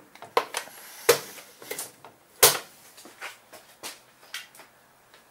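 A string of sharp clicks and knocks from hand tools and metal snowblower engine parts being handled, the loudest about two and a half seconds in.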